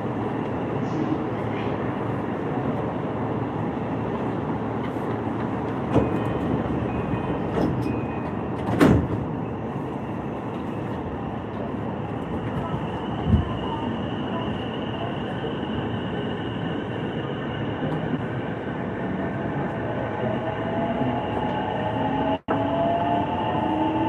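E233 series electric train running, heard from inside the passenger car: a steady rumble of wheels on rail with a few sharp knocks. Near the end a whine rises slowly in pitch as the train gathers speed.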